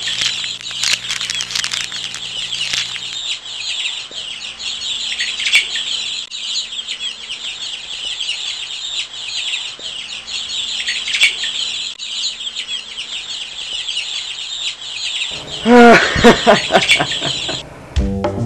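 Many small birds chirping together in a dense, continuous chorus. Near the end a louder animal call cuts in over them for about two seconds.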